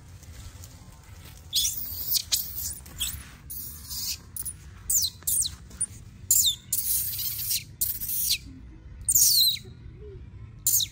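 Baby macaque screaming: a run of shrill, high-pitched cries, many falling in pitch, starting about a second and a half in and repeating with short breaks.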